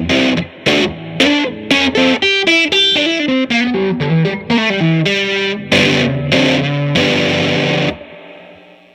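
1957 Gibson ES-225TD electric guitar played through an Allston tube amp with the mids turned all the way up and the treble and bass at halfway: a run of picked single notes and chords. The playing stops about 8 s in, leaving a faint steady amp hum.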